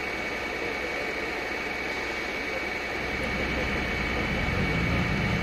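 A truck's diesel engine running nearby, its low rumble growing louder about three seconds in, over a steady high-pitched whine.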